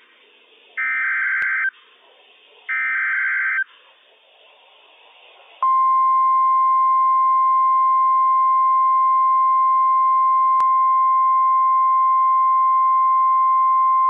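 NOAA Weather Radio EAS alert: the last two SAME header data bursts, each about a second of harsh warbling tones with a second of faint radio hiss between them. About five and a half seconds in, the steady 1050 Hz warning alarm tone begins and holds at one pitch. Together they signal that a warning message, here a severe thunderstorm warning, is about to be read.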